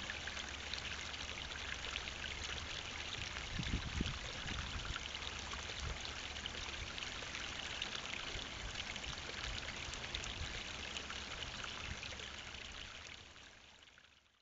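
Shallow stream running over rocks: a steady rush of water with a brief low rumble about four seconds in. It fades out near the end.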